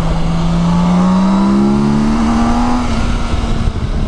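BMW K1600B's inline-six engine pulling under acceleration, its pitch rising steadily for about three seconds and then levelling off, with wind noise underneath.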